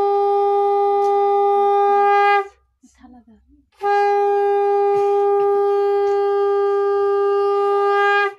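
Conch shell (shankha) blown in two long, steady, loud blasts: the first ends about two and a half seconds in, and after a short breath the second is held until near the end.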